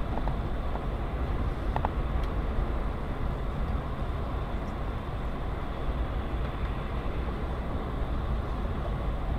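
Steady low rumble of a moving car's engine and tyres on the road, heard from inside the cabin, with a faint click or two about two seconds in.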